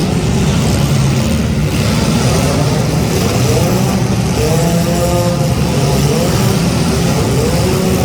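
Front-wheel-drive car engines running hard and revving, the pitch rising and falling again and again over a steady low drone.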